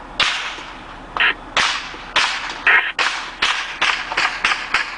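Small-arms gunfire during a convoy ambush: about a dozen sharp cracks at uneven intervals, coming faster in the second half.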